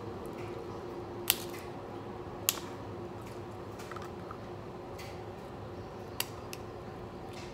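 Crab leg shells cracking as they are broken apart by hand: a few sharp snaps, the strongest about a second in, again at two and a half seconds and once more about six seconds in, over a steady low hum.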